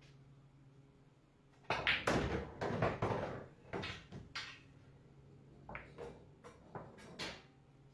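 Pool balls struck hard with a cue and slammed into the table's pockets: a cluster of loud knocks and clacks starting about two seconds in, and a second run of sharper knocks near the end.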